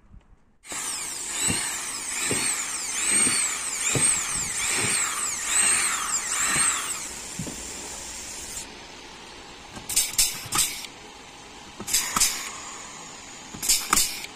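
Power drill running, its sound swelling and dipping a little more than once a second, then running steadily and stopping. After it, three quick clusters of sharp clacks, about two seconds apart.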